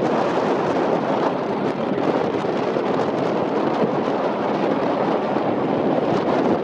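Squirrel helicopter hovering and working slowly overhead: a steady, unbroken rotor and turbine noise at an even level.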